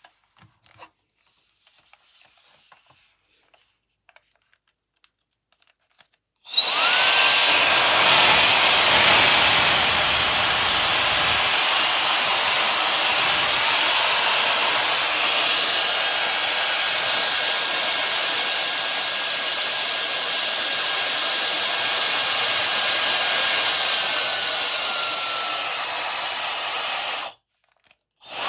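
A SUPGALIY mini ionic high-speed hair dryer is switched on after a few seconds of faint handling clicks. It blows with a steady rush of air over a high motor whine that climbs quickly at start-up. Near the end the whine sinks a little, the dryer cuts off, and it starts again about a second later.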